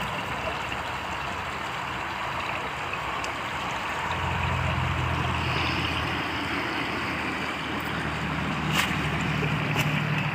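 Stream water running steadily, a continuous rushing and gurgling. A low steady hum joins about four seconds in.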